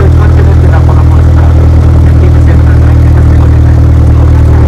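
Cessna 172's piston engine and propeller running loud and steady.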